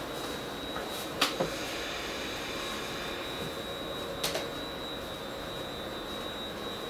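Steady background hiss with a faint high whine, broken by two light pairs of knocks, about a second in and again about four seconds in.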